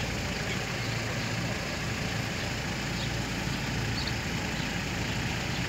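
A vehicle engine idling steadily, a low even hum under a constant hiss of street noise.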